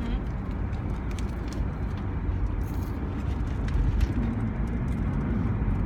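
Steady low rumble of a car heard from inside the cabin, with a few faint clicks and rustles on top.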